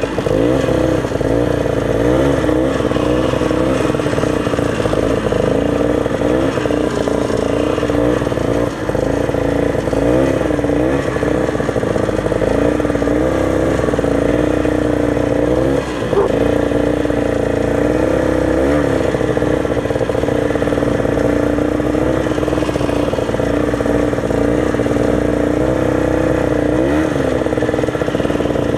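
Old Ski-Doo snowmobile's two-stroke engine running under way, its pitch rising and falling again and again with the throttle.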